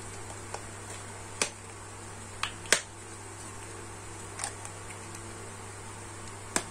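A small cardboard box being handled and opened by hand: several short, sharp clicks and taps of the card, the loudest a little under three seconds in, over a steady low hum.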